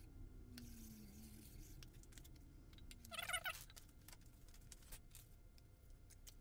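Faint handling noise of sandpaper and tape being laid on an aluminium bar: light scattered clicks and rustles. About three seconds in there is one short, high, warbling squeak.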